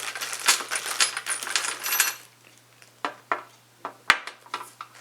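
Small steel driver bits and sockets rattling and clinking together as they are handled. A dense jingle lasts about two seconds, then come several separate clicks.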